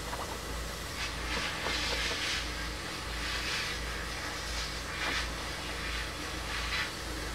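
Small electric motor of a bench drill bit sharpener running steadily, with a few light clicks and scrapes of a drill bit being set in its collet chuck.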